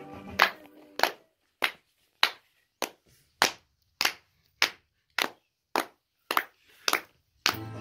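Hand clapping in a steady rhythm, a little under two claps a second. Music with singing stops just as it begins and comes back near the end.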